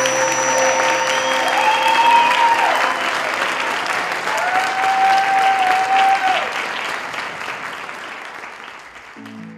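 Audience applauding and cheering, with two long whoops from the crowd, as a final held note of music dies away; the applause fades out gradually and new music begins near the end.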